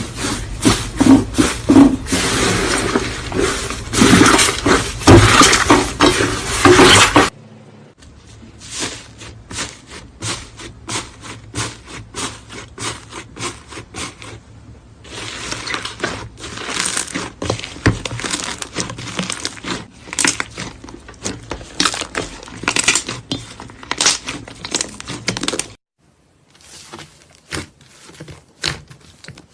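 Slime being squeezed and kneaded by hand, a dense run of crackling, clicking pops. Loud for about the first seven seconds, then it cuts to a quieter stretch of the same crackling, with another cut to quieter clicking near the end.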